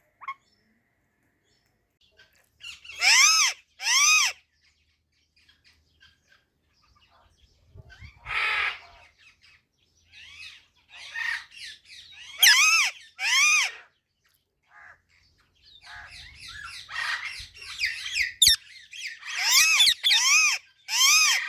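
Pet Indian ringneck and alexandrine parakeets calling: loud, harsh squawks in quick runs of two or three, each arching up and then down in pitch, about three seconds in, near the middle, and near the end. Between the runs there is softer chattering and one rougher call.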